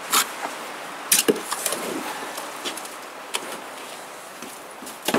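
Bricklaying work: a steel trowel scraping and tapping in mortar and against bricks, with scattered sharp clinks and knocks, the loudest about a second in.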